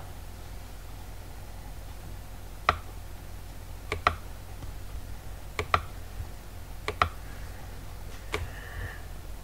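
Computer mouse button clicks, single and in quick pairs, about five over several seconds, over a steady low hum.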